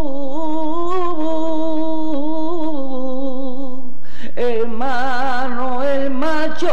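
A solo voice singing a flamenco-style lament (a soleá) in long, ornamented phrases with heavy vibrato. A held phrase fades about four seconds in, and a new, louder phrase begins at once.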